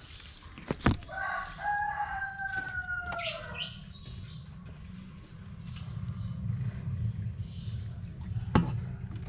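A rooster crows once, a long call of about two and a half seconds that falls away at the end. A few short high bird chirps follow, and sharp clicks come near the start and near the end.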